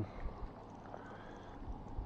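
Faint wind buffeting the microphone, with small waves lapping in the shallows.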